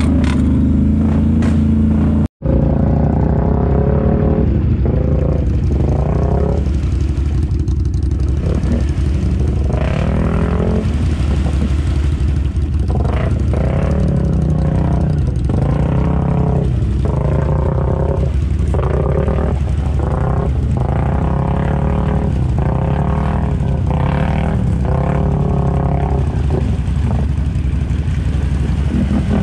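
ATV engine revving hard in repeated bursts, its pitch rising and falling every second or two, as the quad sits bogged down in deep mud and churns to get through. The sound cuts out for an instant a couple of seconds in.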